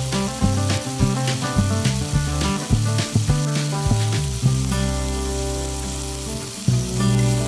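Chicken thighs sizzling as they brown in a frying pan with onions and carrots, under background music with a steady beat.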